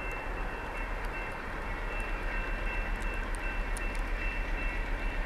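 Diesel freight train approaching: a steady low engine rumble with a thin steady high whine, and a rhythmic pulsing of about four a second that sets in about two seconds in.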